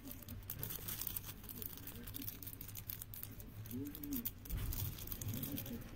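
Faint handling noise of a small charm in a clear plastic capsule and wrapper: light plastic clicks and crinkling, with a brief soft voice sound about four seconds in.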